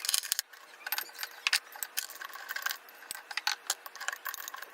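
Small toy skeletons clicking and rattling against each other and against the vase as they are pushed into an empty vase by hand: many quick, irregular clicks.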